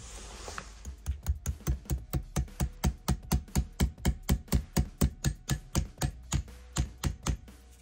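Even series of sharp mechanical clicks, about four a second, from the shoulder-brace hand drill's gear mechanism being worked by hand.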